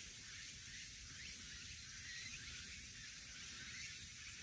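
Tabby cat purring while being stroked on the head: a low, steady rumble under a faint high hiss.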